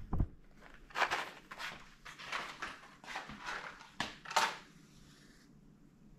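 Half a dozen short scratchy strikes over about four seconds, as someone strikes for a flame to light a candle.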